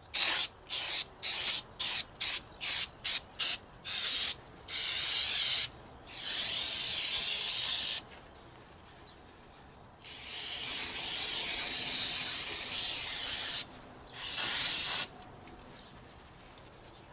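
Aerosol brake cleaner spraying onto a semi truck wheel hub to clean off oil: a quick run of about ten short squirts, then four longer sprays, the longest about three and a half seconds.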